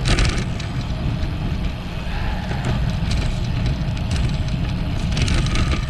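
Steady wind rumble on a chest-mounted camera's microphone while riding a road bike.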